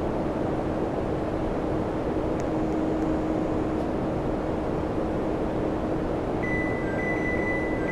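Samsung air conditioner running with a steady whir and a low hum. Near the end a pattern of high electronic tones begins.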